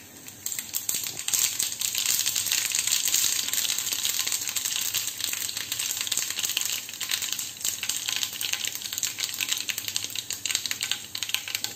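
Mustard seeds spluttering in hot coconut oil in a small pan as a tempering is fried: a dense crackle of tiny pops that builds up within the first second or two and keeps going.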